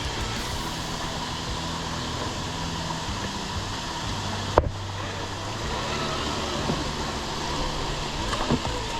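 RGT Rescuer 1/10 RC rock crawler driving over trail ground, its stock brushed motor and gears running steadily. There is a sharp click about halfway.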